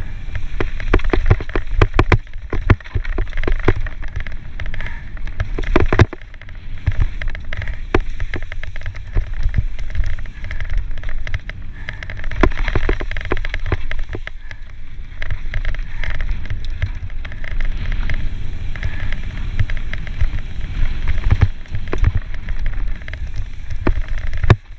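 Mountain bike descending a dry dirt trail: wind buffeting the bike-mounted camera's microphone as a constant low rumble, tyres rolling over dirt and loose rock, and irregular sharp clacks and rattles as the bike hits bumps.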